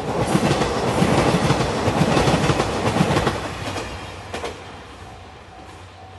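JR Shikoku 2700 series diesel limited express train passing close by: engine noise and wheels clacking rhythmically over the rail joints, loudest in the first three seconds, then fading as it moves away. From about five seconds in, a level-crossing alarm rings faintly in an even on-off pattern.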